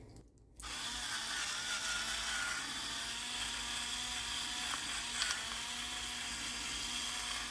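Electric pepper grinder's small motor whirring steadily as it grinds black pepper, starting about half a second in.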